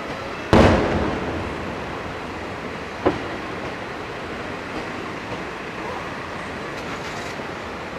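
Aerial firework shell bursting: a sudden loud boom about half a second in that rolls away over a second or so, then a single sharp crack about three seconds in.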